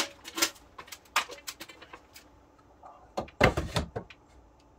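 Scattered clicks and knocks of a long spirit level being handled and set against wooden ceiling joists, with a louder clatter of knocks about three and a half seconds in.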